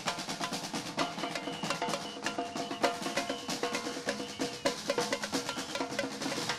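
Parade street band playing: quick snare-drum strokes and bass drum, with a held pitched melody over them.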